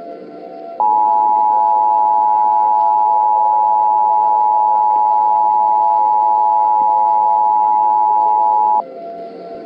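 Emergency Alert System attention signal: two steady tones (853 and 960 Hz) sounding together. They start about a second in and cut off suddenly about eight seconds later, over a quieter steady background. The signal announces that an emergency alert message is about to follow.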